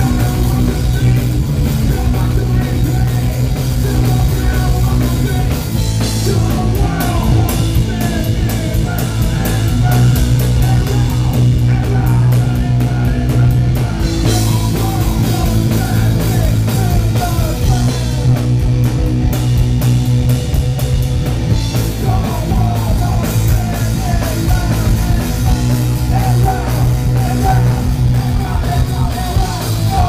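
Rock band playing live at loud volume: bass guitar, electric guitar and drums, with a singer shouting into the microphone.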